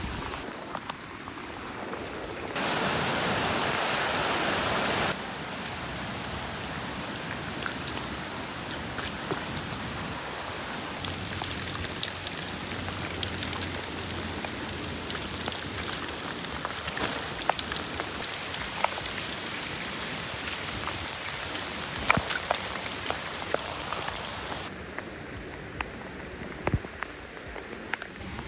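Heavy typhoon rain falling, a steady hiss with scattered sharp drips and taps of drops; it is louder for a couple of seconds near the start.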